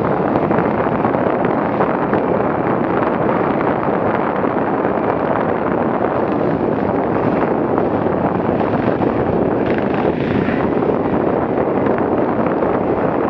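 Steady wind noise buffeting an action camera's microphone, over an enduro motorcycle's engine running on a dirt trail.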